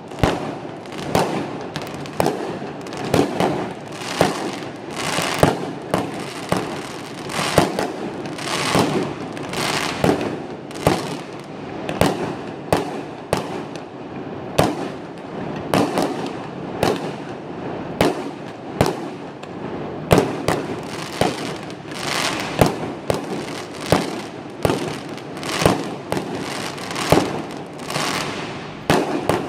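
Fireworks going off in a steady, dense run of sharp bangs, roughly one to two a second, over a continuous noisy background.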